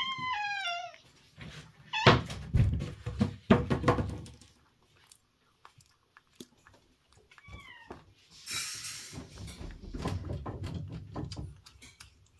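Cat eating wet food from a steel bowl, with soft wet chewing and lapping clicks, and short meows: a quick run of five falling meows at the start and a single short meow about seven seconds in.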